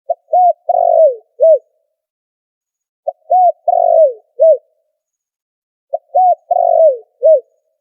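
Spotted dove cooing: three repeats of its phrase, about every three seconds, each a short note, an arched note, a long note falling away, and a final arched note. No background noise between the phrases.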